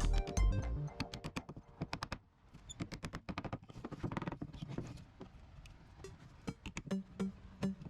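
Background music ends about two seconds in, followed by a run of short, light clicks and knocks; music returns near the end.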